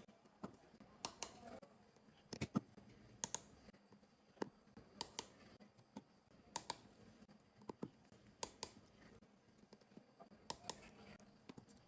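Torque screwdriver clicking as it tightens small phone screws to a set torque: faint, sharp, irregular clicks, about one or two a second.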